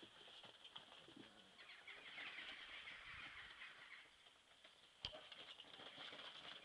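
Near silence: faint outdoor ambience, with soft rustling in the middle and one sharp click about five seconds in.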